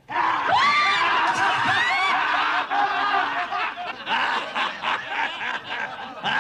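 Loud, hearty male laughter bursts in suddenly and carries on, gradually dying down toward the end.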